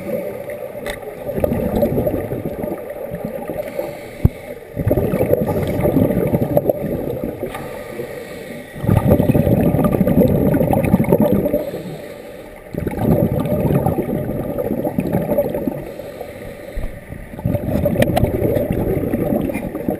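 Scuba regulator exhaust bubbles heard underwater: bubbling rumble in bursts of two to four seconds, one per exhaled breath, with quieter gaps for each inhale. A single sharp click a little over four seconds in.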